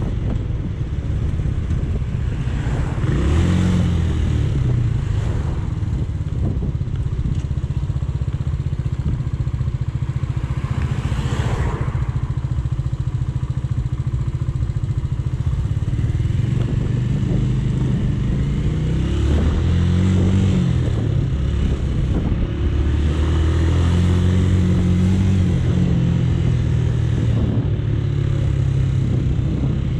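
Romet K125's 125cc single-cylinder four-stroke engine heard from the rider's seat while riding: the engine note rises with acceleration a few seconds in and twice more about two-thirds through, with steadier running in between, over wind and road noise.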